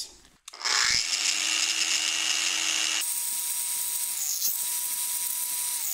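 Angle grinder starting up about half a second in and running free with a steady whine, its pitch stepping slightly lower about halfway through. It draws about 180 to 200 W from a 200 W portable power station's inverter.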